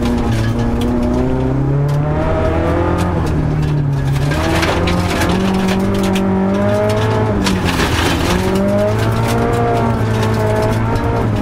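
Rally car engine heard from inside the cabin at full pace, its pitch climbing and dropping back again and again through gear changes, with gravel clattering against the underside of the car.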